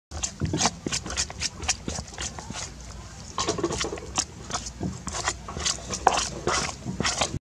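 Metal spoon clicking and scraping against a metal bowl in quick, irregular strokes while stirring flour into a wet mixture.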